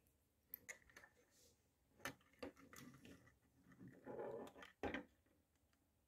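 Faint light clicks and scrapes of a jeweler's screwdriver turning a screw in a small screw terminal block as a power cable is clamped in, a handful of ticks spread over a few seconds.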